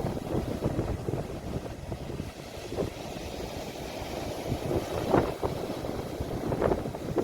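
Sea waves washing on the shore, recorded on a phone, with a low rumble of wind on the microphone and a few brief surges of surf.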